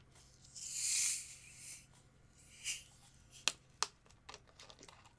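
Cap of a 500 ml bottle of Sprite twisted open: a hiss of escaping carbonation that swells and fades over about a second and a half, followed by a few sharp clicks.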